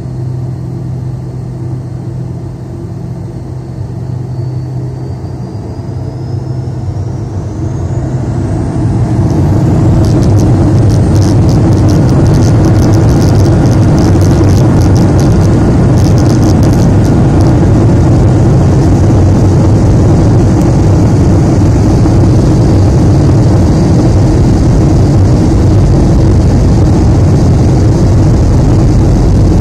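Avro RJ85's four Honeywell LF507 turbofans spooling up for takeoff, heard from inside the cabin: a faint whine rises steadily in pitch. About nine seconds in, the engines reach takeoff power and a loud, steady roar takes over as the airliner accelerates down the runway.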